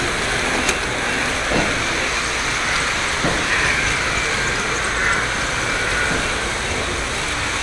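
Lionel model trains running on three-rail O-gauge track: a steady rumble and rattle of wheels and motors as a steam-style locomotive and its passenger cars pass close by, with a few faint clicks.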